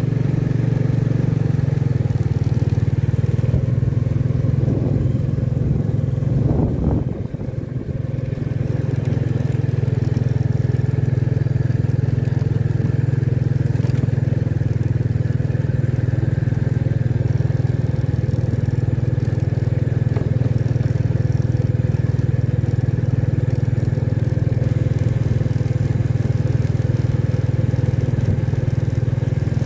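Motorcycle engine running steadily while riding, with a brief dip in loudness about seven seconds in before it picks back up.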